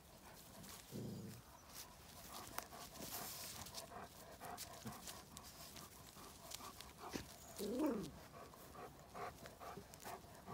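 Small dogs play-fighting: quick panting and snuffling with rustles and scuffs, and one short whine-like yelp about eight seconds in, the loudest sound.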